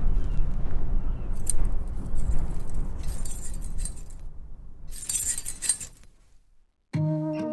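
Metal coins of a đerdan, a traditional coin necklace, jingling as it is lifted and shaken, in three short bursts over a low rumbling background. Music with sustained tones starts near the end.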